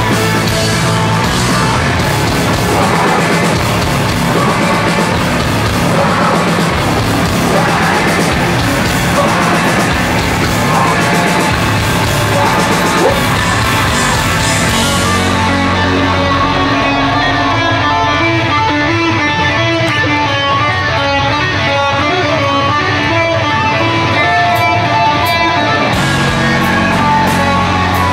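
Heavy rock band playing loud and live: distorted electric guitars, bass and drums. About halfway through, the cymbal hiss drops away and the sound thins to a repeated guitar figure over the bass.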